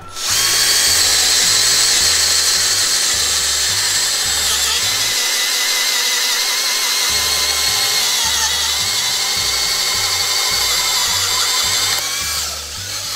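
HiKOKI DV12DD 10.8 V cordless driver drill boring a 22 mm wood auger bit into a thick timber block, the motor running at a steady speed under load without bogging down. It eases off near the end.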